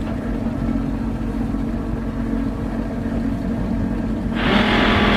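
Boat engine idling with a steady hum; about four seconds in, the stern thruster switches on with a sudden loud whirring rush that holds steady.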